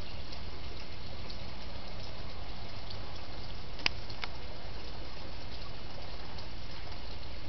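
Steady rushing, water-like noise with a low hum underneath, scattered with faint small clicks as kittens eat from a metal food bowl. About four seconds in there is one sharp click, followed quickly by a softer second one.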